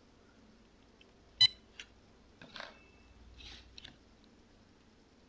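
Cordless phone handset giving one short beep about a second and a half in as its power/talk pads are shorted with a copper jumper, switching the phone on. A few faint rustles and light clicks follow.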